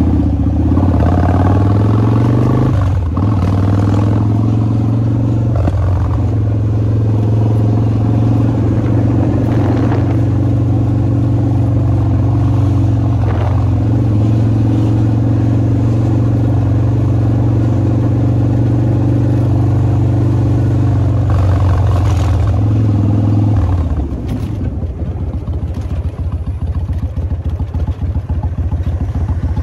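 Kawasaki Vulcan 1600 Mean Streak's V-twin engine and exhaust under way, heard from the rider's seat. It rises in pitch at the start, breaks off briefly about three seconds in, then runs at a steady cruise. About 24 seconds in it drops away to a quieter, rough crackling off throttle.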